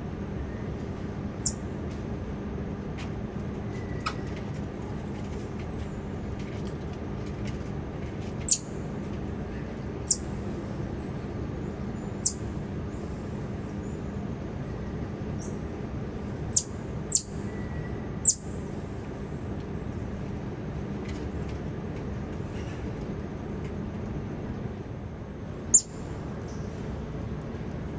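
Steady low mechanical hum, with about nine short, very high-pitched chirps scattered through it, typical of the calls of small monkeys such as tamarins and marmosets.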